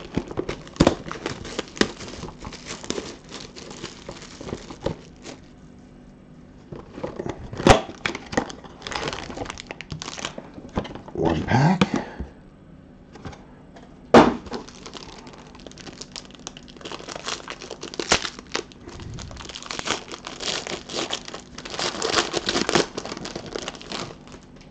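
Plastic shrink wrap crinkling and tearing as it is stripped from a sealed hobby box of trading cards, then the box opened and a foil card pack ripped open. Several sharp snaps stand out from the crackling, and there is a short rising squeak about halfway through.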